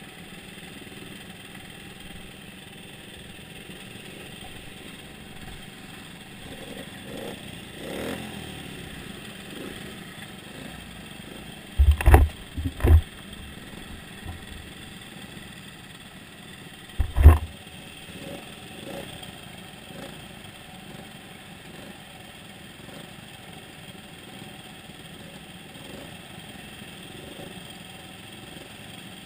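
A pack of motorcycles idling together, a steady engine drone. Three loud sharp thumps break through it: two close together about twelve seconds in and one about five seconds later.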